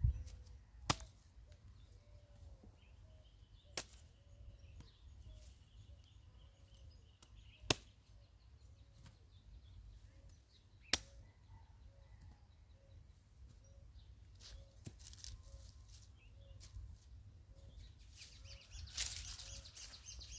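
Five sharp single knocks spaced a few seconds apart. Between them a faint short call repeats about once a second.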